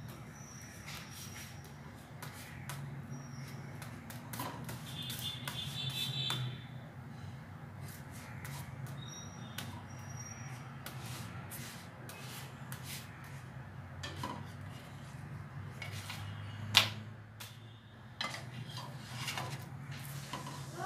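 Slotted spatula tapping, pressing and scraping on a flat tawa as a chapati is cooked and turned, with scattered light clicks and one sharp, much louder knock about three-quarters of the way through, over a low steady hum.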